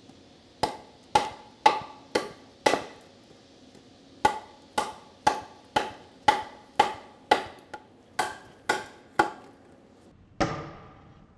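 Heavy combat knife chopping into a wooden 2x4: about sixteen sharp, ringing chops at roughly two a second, with a short pause after the first five. Near the end comes one heavier knock that dies away more slowly.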